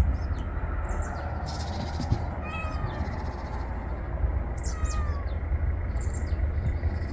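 A cat meowing three times in short, falling meows, over a steady low rumble.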